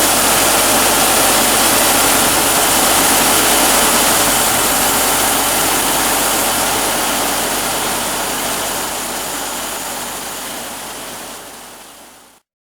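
Sawmill machinery running steadily, a loud engine hum under a wide rushing noise, fading out over the last several seconds and ending in silence.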